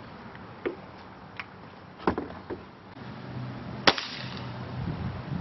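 Ruger Blackhawk .177 spring-piston break-barrel air rifle firing one sharp shot about four seconds in, with a few fainter clicks before it.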